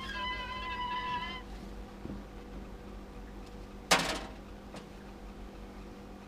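A high, drawn-out squeal lasting about a second and a half, then a single sharp knock about four seconds in, over a steady low hum.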